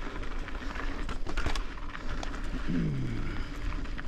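Mountain bike rolling down a dirt singletrack: the tyres run over dirt and small rocks with a steady low rumble, and the bike rattles and clicks many times. A short low tone falls in pitch about three seconds in.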